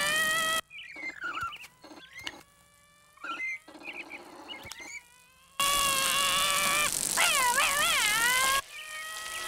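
A cartoon character's high-pitched held cry that wavers in pitch, breaking off about half a second in. A quieter stretch of small squeaks and clicks follows, then the cry returns for about three seconds and ends in a wobbling warble.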